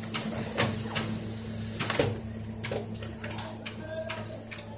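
Sharp AR-6020-series digital copier running a print job: a steady motor hum with a series of mechanical clicks and clacks as the paper feeds through.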